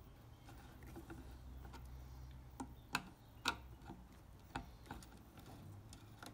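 Faint, irregular small clicks of a screwdriver working the screw terminals of a pump controller's terminal block as sensor wires are fastened in, several sharp ticks with the loudest two near the middle.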